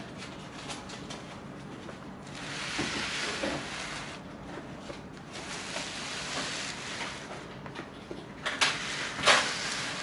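Cardboard firework cake box being turned and slid by hand on a cloth-covered table: two stretches of rustling scraping, then a few sharp knocks near the end.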